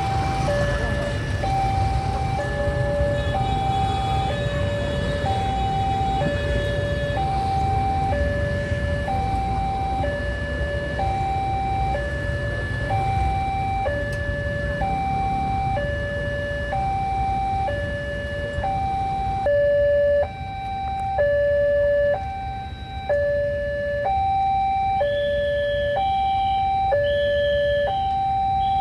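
Electronic two-tone alarm at a railway level-crossing barrier, switching between a higher and a lower tone about once a second, over a steady low rumble.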